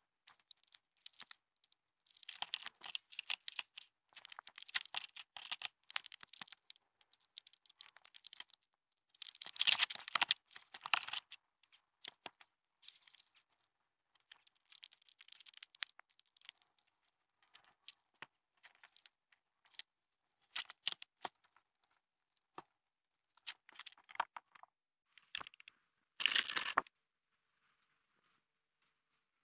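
A grey squirrel scrabbling right against the camera and its microphone: irregular scratching and crackling clicks, with a louder burst about ten seconds in and another near the end.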